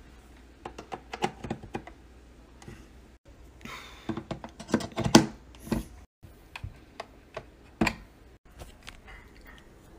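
Irregular clusters of hard plastic clicks and taps as small devices, among them an AirPods case, are set into the slots of a multi-device wireless charging dock.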